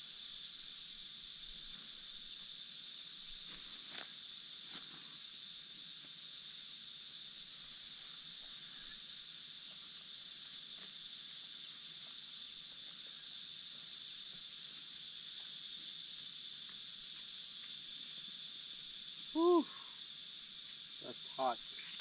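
Steady high-pitched drone of an insect chorus. A short pitched call sounds about three-quarters of the way in, and two fainter ones come near the end.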